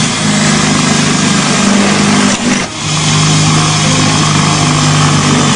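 Cordless drill running at speed, boring a hole through an aluminum angle bracket. It runs in two stretches, with a short let-up about two and a half seconds in.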